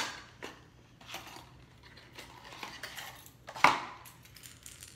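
Lure packaging handled on a table: small clicks and rustles of plastic and cardboard, with a sharp knock at the start and a louder clatter about three and a half seconds in.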